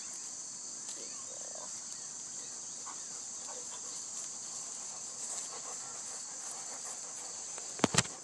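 Steady high-pitched chorus of insects trilling in summer vegetation, typical of crickets. Near the end come two sharp knocks on the phone as a Doberman's head bumps against it.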